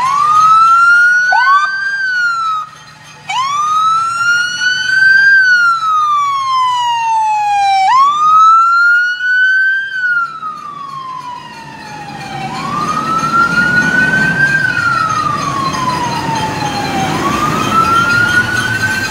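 Emergency vehicle siren wailing, sweeping slowly up and down in pitch about every four to five seconds, with a couple of short upward chirps near the start. In the last third the siren is a little fainter and the rumble of a fire engine passing close rises beneath it.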